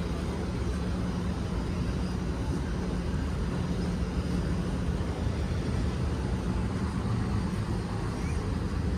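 Steady low rumble of outdoor background noise, unbroken and even throughout.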